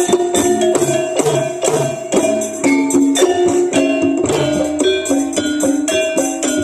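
Javanese gamelan playing jathilan accompaniment: bronze metallophones ring out a quick, repeating melody over drum strokes, with metallic jingling on top.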